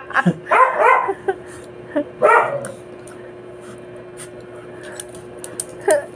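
A dog eating a balut (fertilised duck egg) off the floor. It makes a few short vocal sounds in the first couple of seconds, then quieter, scattered wet chewing and licking clicks.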